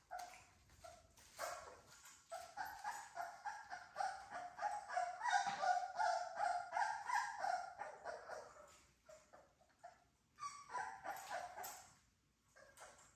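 Three-week-old American Bully puppies whining and yipping: a rapid string of short, high-pitched calls for several seconds, a pause, then another shorter run near the end.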